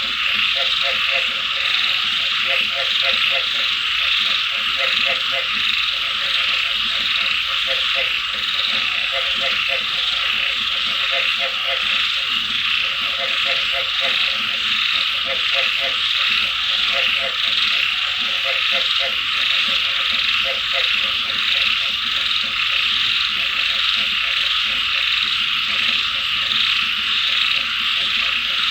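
Frogs croaking in rapid pulsed trains of low notes, repeated in groups with short pauses, over a steady high hiss.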